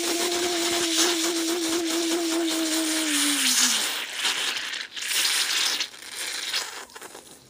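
Cola fizzing and bubbling inside a large plastic bottle that is filled with foam, with a mouth sealed over its neck: a steady hiss with crackle. A held droning tone runs under it, slides down and stops about four seconds in. After that the fizzing comes in uneven bursts and fades near the end.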